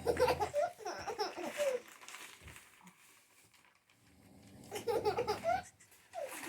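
Young child laughing in two bouts, one at the start and another about five seconds in.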